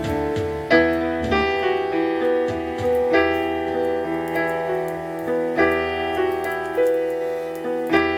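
Piano music played from a vinyl record on a Schaub Lorenz record player through a stereo tube amplifier: sustained piano chords, with a new chord struck about every second and a quarter.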